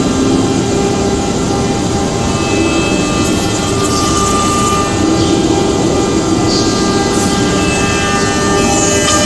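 ATC CNC router running and machining, with the spindle's cutting noise steady throughout and several high, steady whining tones that come and go over it.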